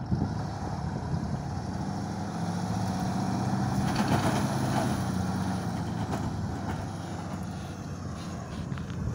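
2021 Ram 3500 dually's Cummins turbo-diesel engine working under load as the truck drags a fifth-wheel toy hauler through soft sand, in four-wheel-drive low. The engine revs up about two seconds in and eases off after about six seconds.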